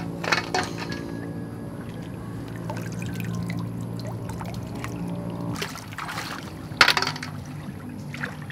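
Shallow pond water splashing and trickling as snails are picked from it by hand, with a few sharp knocks, the loudest about seven seconds in. Soft background music holds low notes through the first half.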